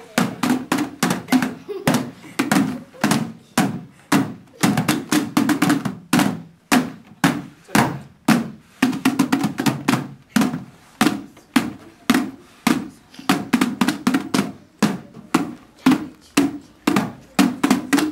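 Hollow plastic traffic cones knocked against a wooden floor by a group in a rhythm exercise, giving quick percussive knocks several times a second.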